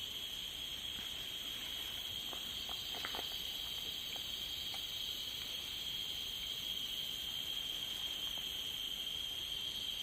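Steady chorus of forest insects: one constant high-pitched buzz with fainter, higher shrilling above it. A few faint ticks come about two to three seconds in.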